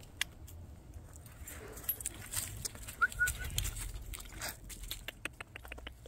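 Rustling and irregular clicking in dry leaves and grass as a dog and the person filming move about close to the microphone, with a quick run of clicks in the second half. A single brief high squeak sounds about three seconds in.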